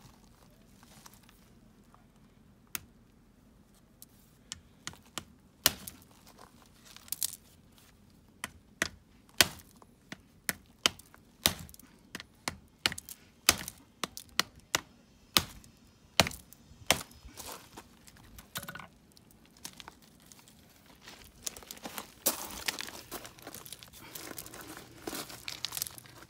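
A hammer striking a septarian nodule (a rock concretion) over and over, sharp knocks at an uneven pace of about one or two a second. Near the end comes a crackling, crunching rustle as the split nodule's stone pieces are pried apart over gravel.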